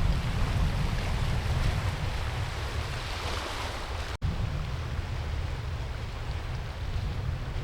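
Wind buffeting the microphone in a heavy, uneven rumble, over the wash of sea surf on the shore. The sound drops out for an instant about four seconds in.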